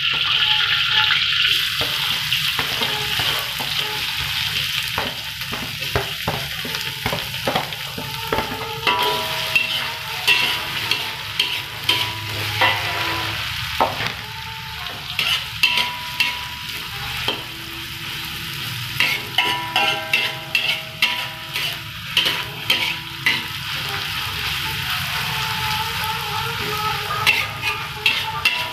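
Sliced spring onions sizzling in hot oil in a wok, stir-fried with a metal spatula that repeatedly scrapes and clicks against the pan, the clicks coming more often from about ten seconds in.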